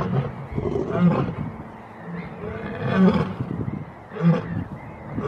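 Lioness roaring in a series of deep calls, about four in a row, spaced a second or two apart.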